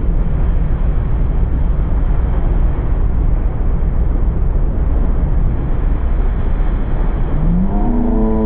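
Steady loud rush of the churning wake wave and wind buffeting an action camera held close to the water, over the towboat's engine drone. Near the end a long pitched tone rises and then slides down.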